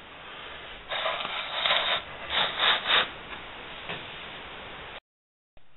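A bracket-mounted treadmill motor being turned around by hand on a wooden board: several short rubbing and scraping sounds about one to three seconds in, then fainter handling. The sound cuts off suddenly near the end.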